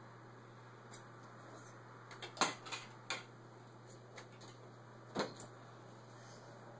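A split fiberglass cast being worked off a forearm: a few sharp snaps and crackles as the shell is pried apart and the padding pulled, loudest about two and a half seconds in and again about five seconds in, over a faint steady hum.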